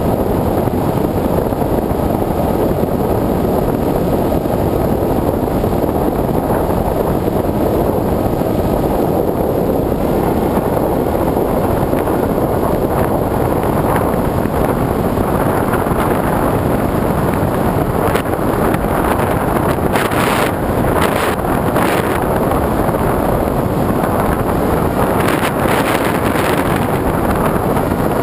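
Steady engine drone of a small aircraft in flight, mixed with heavy wind rush on the onboard camera's microphone, with gusts of louder hiss in the second half.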